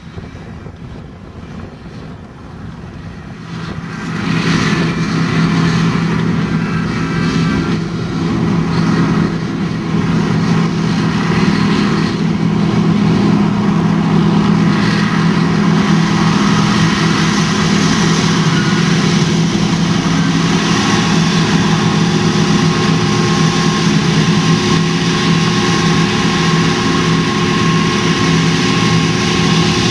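Large John Deere tractor's diesel engine running steadily while it drives a grain cart's unloading auger, pouring soybeans into a semi trailer. The engine sound grows louder about four seconds in, then holds steady.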